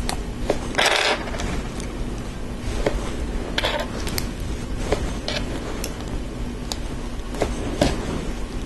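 LEGO bricks and plates handled and pressed together: scattered small plastic clicks and taps, with a short scraping rustle about a second in.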